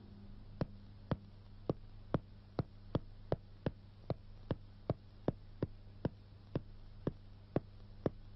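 Hard-soled shoe footsteps clicking on stone stairs and floor, about two steps a second, over a steady low hum.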